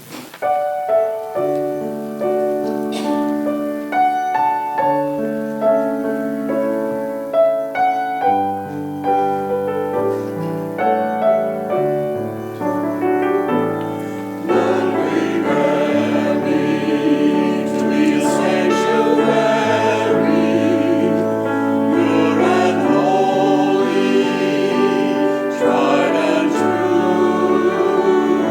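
A piano plays an introduction of sustained chords. About halfway through, a choir begins singing over the piano accompaniment and the music grows louder.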